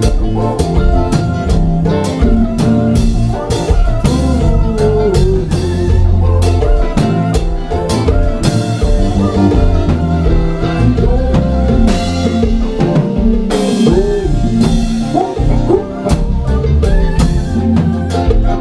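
A live konpa band playing, with drum kit, electric bass and keyboards driving a steady dance beat. Cymbals wash over the beat twice in the middle.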